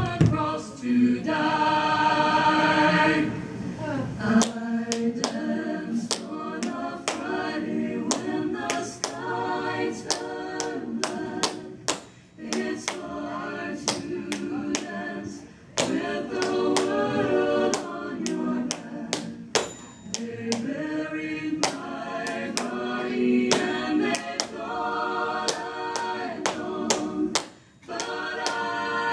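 Tap shoes striking a wooden dance floor in quick, uneven runs of sharp taps, over an unaccompanied choir singing a hymn.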